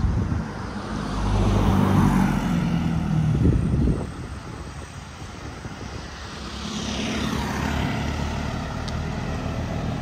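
Engines of two motor vehicles passing close by. The first builds about a second in, falls in pitch as it goes past and drops away sharply at about four seconds. A second one swells in near seven seconds.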